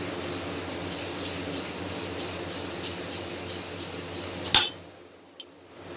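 A piece of cut tubing being rubbed back and forth on sandpaper to sand its end flat, in quick repeated scraping strokes. The sanding stops about four and a half seconds in with a single knock, followed by a small click.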